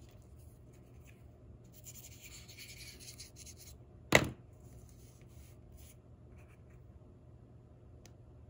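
Zig 2-Way glue pen rubbed back and forth over paper for about two seconds, then a single sharp knock about four seconds in, followed by faint scratches of paper being handled.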